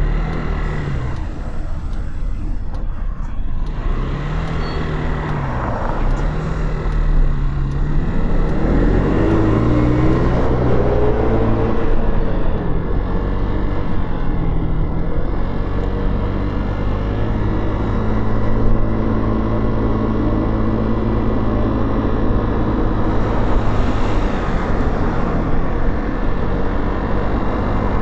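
Motorcycle engine heard from the saddle: its pitch rises and falls a few times early on, then climbs as the bike pulls away about eight seconds in, and settles into a steady run over road and wind noise.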